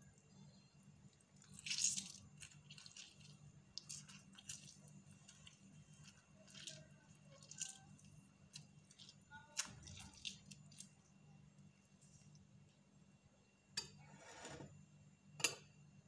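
Faint squelches and drips of a lemon half squeezed by hand, the juice running into a metal spoon over a glass bowl, with a few sharp light clicks, over a low steady hum.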